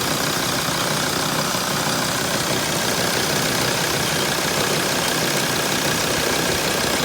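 Diesel engine of a 2006 T1N Sprinter van idling steadily, with the rattle noise that is being tracked down.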